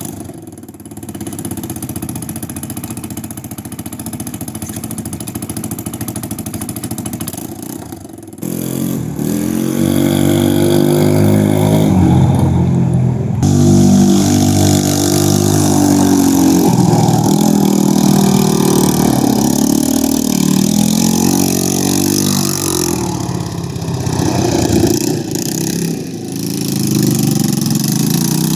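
ATV engine idling steadily, then about eight seconds in it gets louder and its pitch goes up and down as it is revved for most of the rest, easing off briefly a few seconds before the end.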